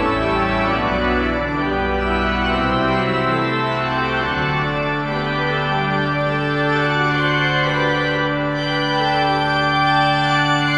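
Church organ playing sustained chords, the hands moving through changing harmonies; a deep pedal bass drops out a few seconds in, and a low note is then held steady under the moving upper parts.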